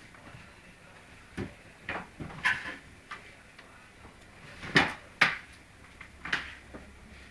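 Half a dozen scattered knocks and clatters, the loudest two close together a little after the middle.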